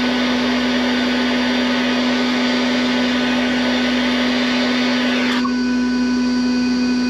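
Handheld gas blowtorch burning steadily with a loud hissing rush over a steady hum, heating a steel rod clamped in a vise. About five seconds in the hiss thins out suddenly and the hum carries on.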